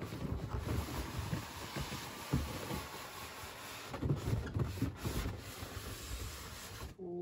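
A large cardboard toy box being lifted and slid up off its packaging tray: cardboard scraping and rubbing, with irregular soft knocks and bumps.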